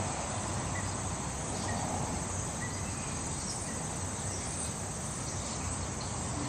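Outdoor ambience: a steady high drone of insects over a low rumble of background noise, with a few faint short chirps.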